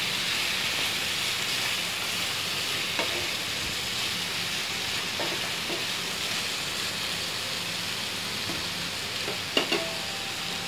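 Chicken pieces and masala sizzling in oil in a granite-coated nonstick frying pan, a steady hiss, while a wooden spatula stirs them with a few light knocks and scrapes against the pan.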